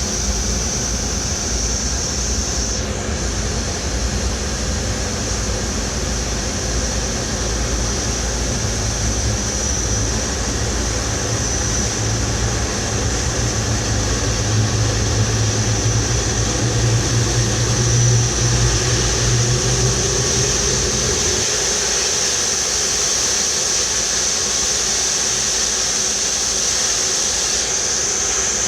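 Aircraft pushback on the apron: a steady high jet whine from the airliner over the low rumble of the pushback tug's engine. The rumble swells in the middle and cuts out about three-quarters of the way through, leaving the whine.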